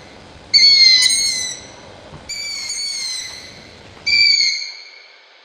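An owl calling three times, each a high call of about a second that falls slightly in pitch, spaced a little under two seconds apart.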